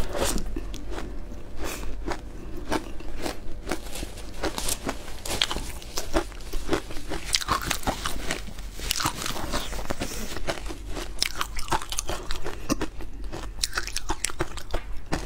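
Ice being bitten and chewed close to lapel microphones: a dense, uneven run of sharp cracks and crackles as the ice breaks between the teeth.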